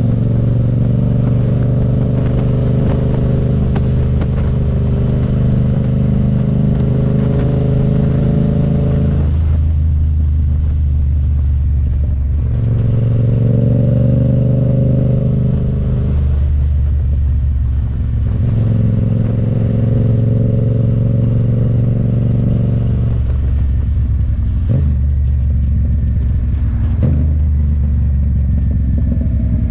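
Yamaha FZ-07's parallel-twin engine running while riding, its note changing several times as the throttle opens and closes. Two brief knocks near the end.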